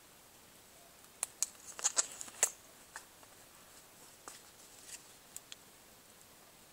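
A quick cluster of sharp clicks and light rustling about a second in, then a few scattered single clicks. It is the sound of small battery-powered bike lights being handled and switched by their buttons.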